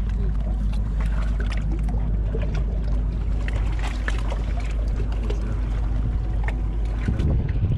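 Steady low wind rumble buffeting the camera microphone, with scattered light clicks and knocks.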